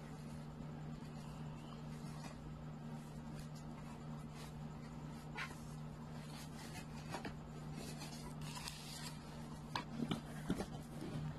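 Hands handling things on a wooden table next to the phone: faint rustling and scraping, with a few sharper clicks near the end, over a steady low hum.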